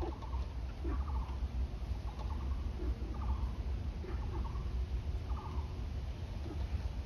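An animal call repeated about once a second, each a short rattling run of quick pulses, over a steady low rumble.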